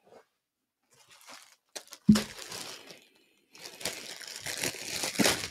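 A thump about two seconds in with a brief rustle, then a plastic garment bag crinkling and crackling as it is handled.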